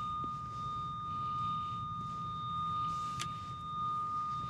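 Steady electronic beep tone from a Radiodetection RD8200 cable locator receiver, held at one pitch as it picks up the signal on a buried power cable being traced. A single sharp click about three seconds in.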